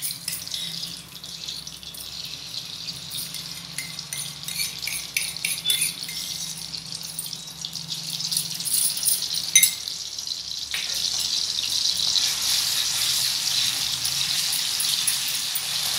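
Hot oil sizzling in a metal kadhai as ginger-garlic paste is spooned in and stirred with a wooden spatula, with light clicks and scrapes of spoon and spatula on the pan. About eleven seconds in, the sizzle grows louder and steadier.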